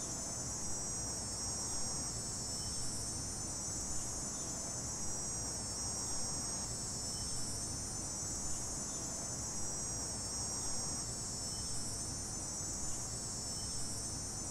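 Crickets trilling in a steady, high-pitched chorus, with a low rumble underneath.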